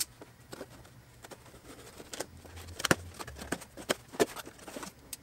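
Footsteps on carpet, then a small cardboard box being handled: scattered taps, scrapes and sharp clicks, the loudest about three and four seconds in.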